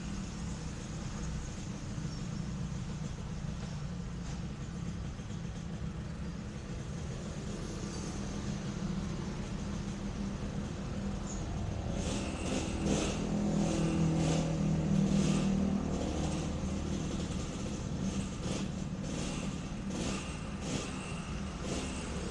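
Yamaha RX King two-stroke single-cylinder motorcycle engine running. It grows louder about twelve seconds in, is loudest around fifteen seconds, then eases back.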